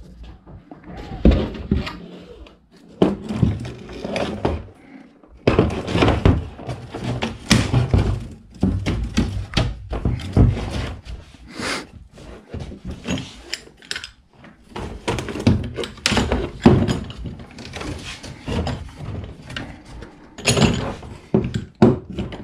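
Irregular knocks, thunks and clatter as a plastic milk crate and anchor hardware are handled and set in place on a kayak hull, with rustling between the knocks.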